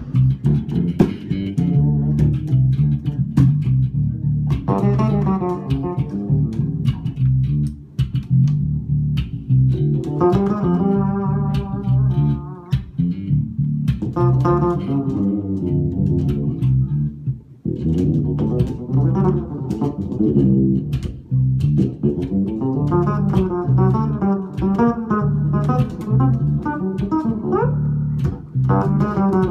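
Electric bass duet, one fretted and one fretless bass, amplified: plucked bass notes and ringing chord-like passages played together, with a quick upward slide near the end.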